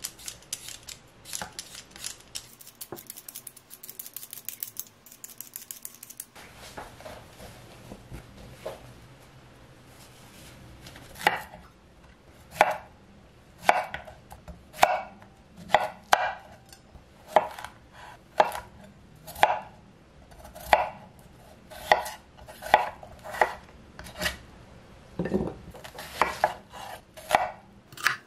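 Vegetable peeler scraping over a raw potato in quick, rapid strokes for the first few seconds. About ten seconds in, a kitchen knife starts cutting through zucchini and then onion onto a wooden cutting board, knocking on the board about once a second.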